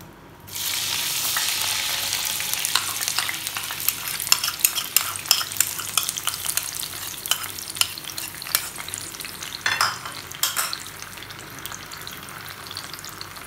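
Onion paste dropped into hot mustard oil in a frying pan: a loud sizzle starts suddenly about half a second in, with a spoon clicking and scraping against the bowl and pan. The sizzle dies down somewhat near the end.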